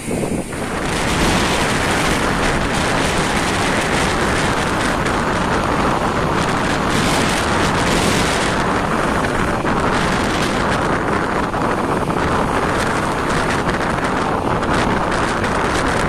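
Strong wind blasting the microphone over the rush of sea waves, cutting in abruptly about a second in and then staying loud and steady.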